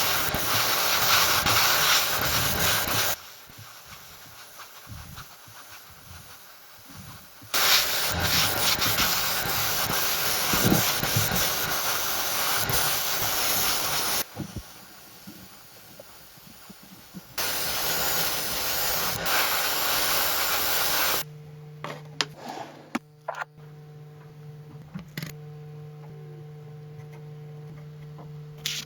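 Car bodywork prep and painting noise: three long spells of loud hissing, rubbing sound, each cutting off abruptly. Then, about two-thirds of the way in, a steady low hum with scattered clicks takes over.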